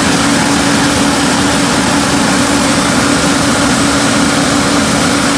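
Heavy farm machinery running steadily and loudly: a constant low drone with a fainter steady whine above it, over a broad rushing noise.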